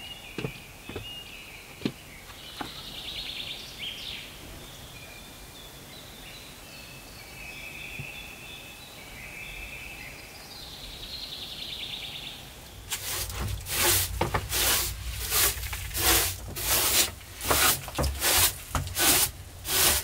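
Birds singing in a forest, with a few light knocks near the start. After about thirteen seconds a short straw hand broom sweeps a wooden plank floor in brisk, even strokes, about two a second, much louder than the birdsong.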